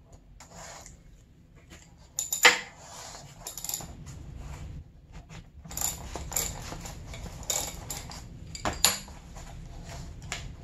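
Steel wrenches clinking and tapping against the metal cap and damper rod of a dirt-bike fork cartridge as the cap is worked loose from the stack. Irregular metallic clicks and clinks, with the sharpest click late on.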